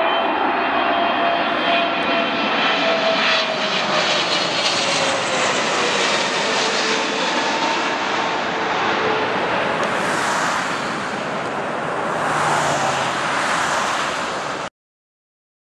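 Boeing 777-300ER's GE90 turbofan engines on landing approach passing overhead: continuous jet noise with a whining tone that falls slowly in pitch as the aircraft goes by, then a hissier rush as it descends away toward the runway. The sound cuts off suddenly near the end.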